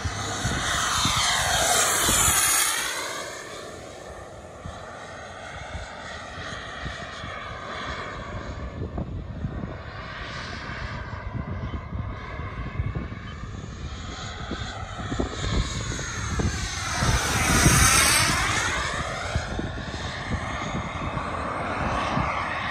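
Xicoy model jet turbine of a CARF Rebel RC jet whining through two fast passes, the pitch falling as each goes by. The second pass, about three-quarters of the way through, is the loudest.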